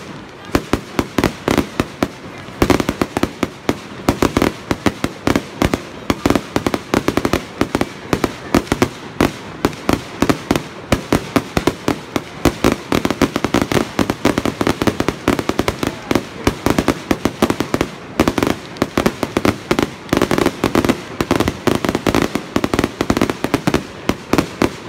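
Fireworks going off: a dense, continuous run of sharp pops and crackles, many a second, with no let-up.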